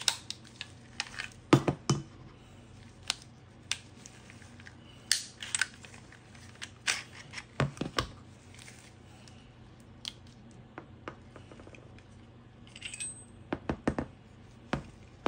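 Irregular metallic clicks and knocks as a Smith & Wesson Equalizer 9mm pistol is field-stripped by hand: the slide is worked and lifted off the frame, and the recoil spring and barrel are taken out and set down on a cutting mat. The loudest knocks come about two seconds in.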